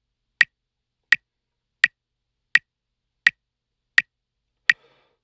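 Metronome clicking steadily, about 83 beats a minute: seven sharp, identical clicks with silence between them.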